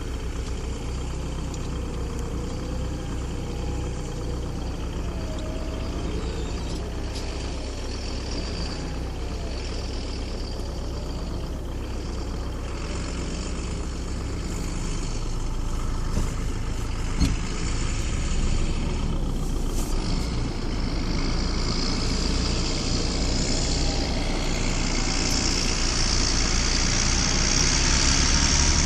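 John Deere 8410 tractor's diesel engine running steadily, growing louder over the second half.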